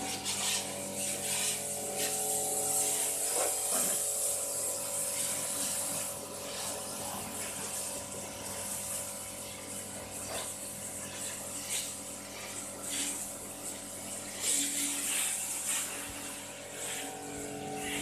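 Self-service car wash machine's pump motor running with a steady hum while the high-pressure spray gun hisses water against a van's bodywork, the hiss swelling and fading as the jet moves, with a few short spatters.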